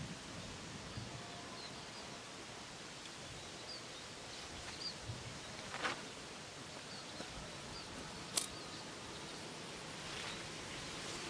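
Outdoor natural ambience: a steady background hiss with faint, short, high chirps of birds or insects, and two sharp clicks, one about halfway through and one about two-thirds of the way in.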